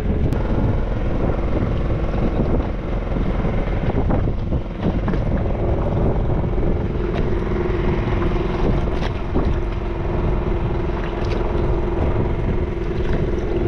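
Fishing boat's engine running steadily, a continuous low rumble with a steady hum coming in about six seconds in, and a few light knocks.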